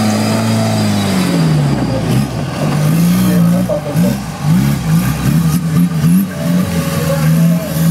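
Suzuki Samurai-based offroad trial 4x4's engine revving hard under load on a dirt climb, its pitch sweeping up and down several times in quick succession through the middle, then holding steady near the end.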